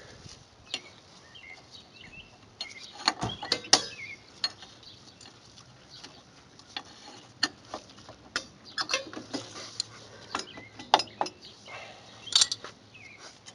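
Irregular metallic clicks, clinks and knocks of steel drum-brake parts being handled while a rear drum brake is reassembled: springs and shoes being worked into place by hand. The sharpest knocks come in a cluster a few seconds in and again near the end.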